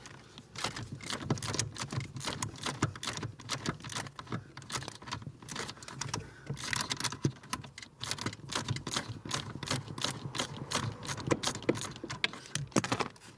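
Ratchet wrench clicking in runs of rapid clicks as it spins out a bolt that has already been broken loose.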